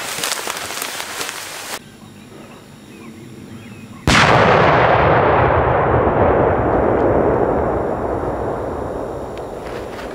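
A burning fuse hisses and crackles for about two seconds. About four seconds in, a 200 mm (8-inch) firework shell detonates on the ground with one very loud blast, followed by a long rumbling echo that fades over about six seconds.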